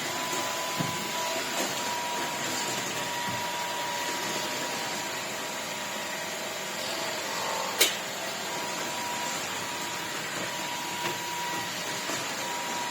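Shark Detect Clean & Empty cordless stick vacuum running steadily, a constant motor whine over the rush of airflow, with one sharp click about eight seconds in.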